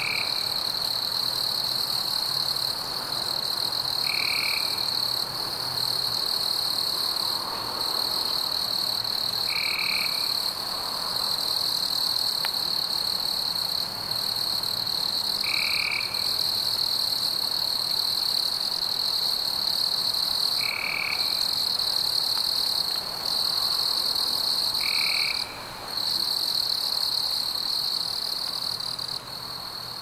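Night forest ambience: a steady, high-pitched insect chorus, with a short call repeating about every five seconds. The chorus drops in level near the end.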